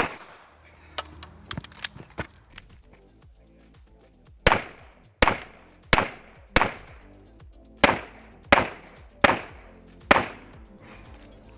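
A handgun firing a string of single shots during a practical-shooting stage. After a few faint clicks there are eight loud shots, about one every 0.7 seconds, with a short pause in the middle. Background music plays faintly underneath.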